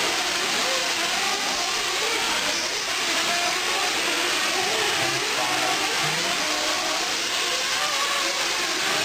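Several 1/8-scale nitro RC truggies racing. Their small two-stroke glow engines whine and keep rising and falling in pitch as they accelerate and lift off, over a steady hiss.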